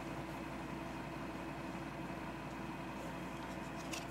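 Steady background hum, with a few faint clicks near the end as the top tarot card is slid off the deck.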